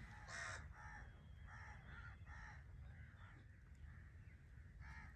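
Faint bird calls: a string of short, pitched calls, about six in the first three seconds, then a pause and one more near the end.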